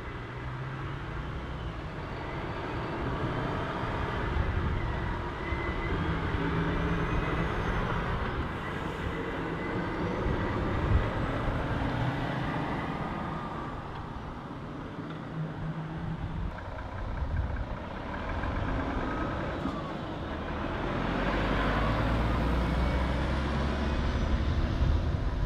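Volvo FH articulated lorry's diesel engine pulling away under load and driving off, with tyre and road noise. Near the end a second articulated lorry passes close, and the low rumble swells.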